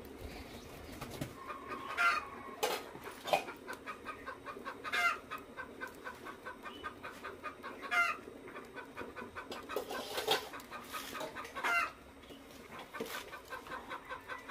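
Chickens clucking in quick short notes, with a louder call rising in pitch about every three seconds.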